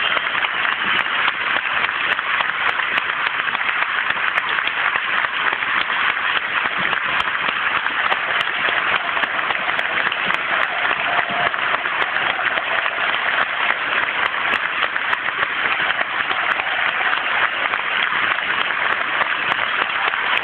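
Large football stadium crowd applauding, a dense, steady clapping that holds evenly throughout.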